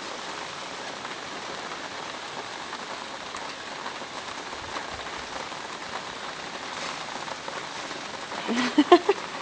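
Steady rain falling, an even hiss throughout. A brief voice is heard near the end.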